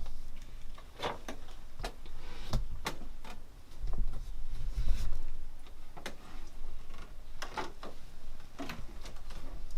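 Quiet, irregular footsteps with small clicks and knocks, spaced about half a second to a second apart: someone creeping up slowly and stealthily.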